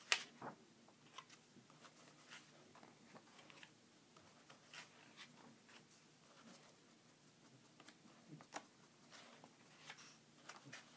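Pages of a book being turned by hand: soft, scattered paper rustles and small clicks, with a sharper knock right at the start.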